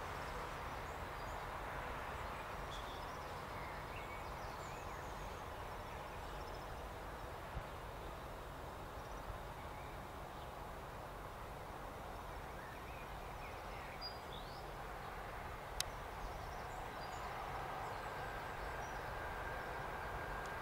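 Quiet trackside ambience: scattered bird chirps over a faint steady hum, with one sharp click about three-quarters through. The distant approaching electric freight train grows slightly louder near the end.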